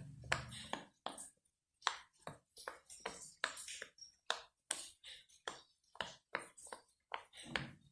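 Silicone Pop It fidget toy bubbles being pressed, popping one after another in an irregular run of sharp pops, about three a second, with a short pause about a second and a half in.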